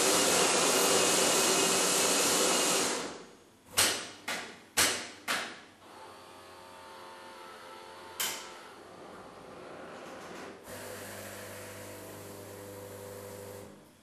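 Saeco bean-to-cup coffee machine making a coffee. Its grinder runs loudly for about three seconds. Four sharp knocks follow as the brew unit moves and presses the grounds, then a quieter steady pump hum that gets louder a little before the end and then stops.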